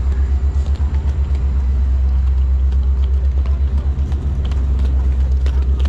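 Rolling suitcase wheels rumbling over a concrete platform, a loud, steady low rumble with a fast flutter, and a few sharp clicks as the wheels or footsteps hit the pavement joints.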